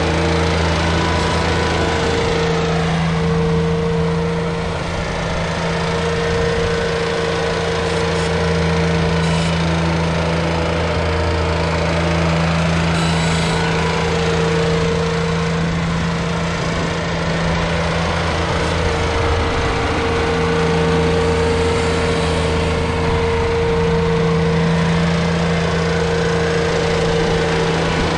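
Engine of a Ventrac 4500-series compact tractor running steadily at working speed while its front blade pushes snow, with a few slight dips in its steady hum.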